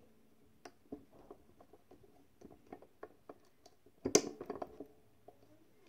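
Small metal clicks and taps as snap-button parts and dies are handled on a bench-top hand press. About four seconds in comes one sharp metal clack, with a brief rattle of smaller clicks after it, as the press is struck down to set a snap.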